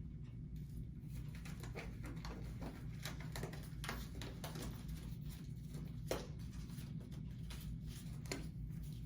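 Faint handling noises: scattered soft clicks and rustles over a steady low hum, with a sharper click about six seconds in.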